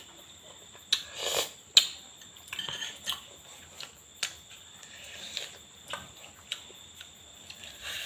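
Kitchen utensils and containers being handled: scattered clinks and taps with short scrapes, one sharper click a little under two seconds in.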